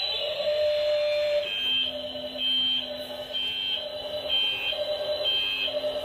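Electronic beeping: two tones, one high and one lower, alternating in a regular pattern about once a second.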